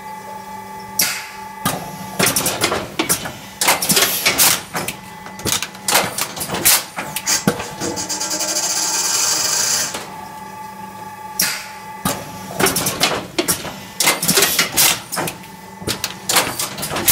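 Schneider Ozga SO 960 automatic strapping machine cross-strapping bundles of magazines: a steady motor hum under rapid, irregular clicking and clattering from its strapping cycles. About halfway through, a steady whirring hiss runs for about two seconds before the clatter resumes.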